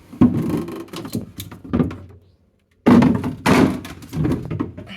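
Several thunks and clattering knocks of food and containers being handled and put away in a refrigerator, with a short pause about halfway through.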